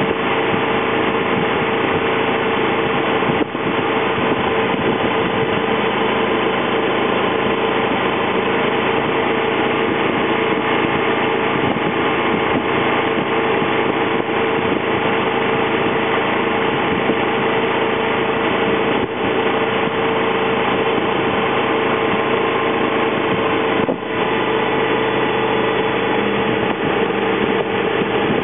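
2003 Honda VFR's V4 engine running steadily at road speed, heard from on the bike, with a steady drone under a dense rush of noise. The level dips briefly three times, about 3, 19 and 24 seconds in.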